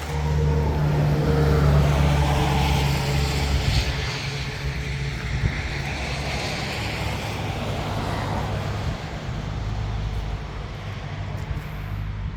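Takeuchi TL8CRW tracked skid steer's diesel engine running at high revs, dropping to a lower, less even level about four seconds in.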